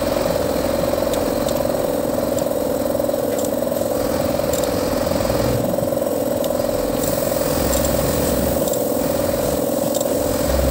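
Truck engine idling steadily, an even, unchanging hum.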